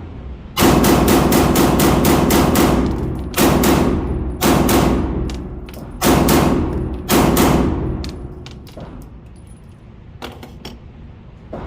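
Glock 47 9mm pistol fired as fast as possible in a magazine dump: a quick unbroken string of shots for about two seconds, then several shorter strings. A few fainter shots follow near the end.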